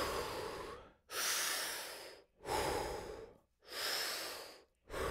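A man breathing hard in and out through the open mouth in the rhythm of Wim Hof breathing: a run of deep, airy breaths of about a second each, with short pauses between.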